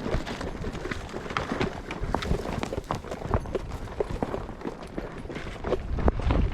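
Pushing through dense brush: branches and twigs snapping and scraping with irregular footfalls, and a low rumble near the end.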